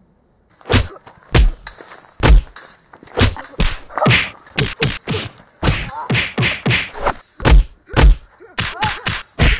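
Fight sound effects for a hand-to-hand kung fu exchange: a quick, uneven run of a dozen or more punch and kick whacks and thuds, with swishes of moving arms between them. It starts after about half a second of silence.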